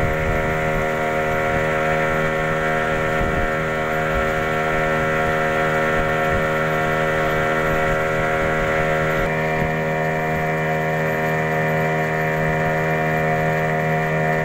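A river boat's outboard motor running steadily at cruising speed, a loud, even drone whose higher tones shift slightly about nine seconds in.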